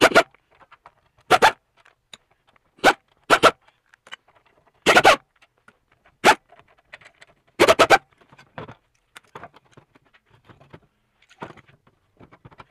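Impact wrench firing in short bursts, about eight of them one to one and a half seconds apart, as it spins out the bolts that hold the pump housing to the engine; after that only faint clicks and handling noises.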